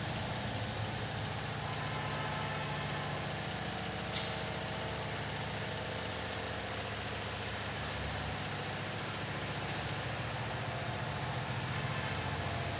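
Steady low mechanical hum with one sharp click about four seconds in.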